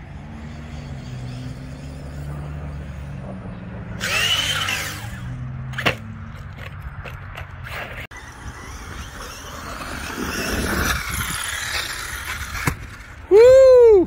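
Arrma Kraton RC truck's 6S brushless motor whining as it is throttled up and down across dirt, with the tyres rushing over the ground. The loudest sound is a sharp rising-and-falling burst near the end.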